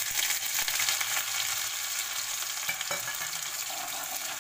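Chopped ginger and garlic pieces sizzling in hot oil in a steel kadhai, with a steady fine crackle, while a metal ladle stirs them. A couple of small knocks come from the ladle about three seconds in.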